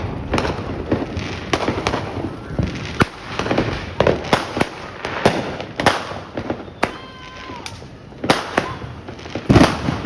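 Fireworks and firecrackers going off in quick, irregular succession: many sharp bangs and pops with a continuous crackle between them. The biggest bangs come about half a second in, around 4 and 6 seconds, and about a second before the end.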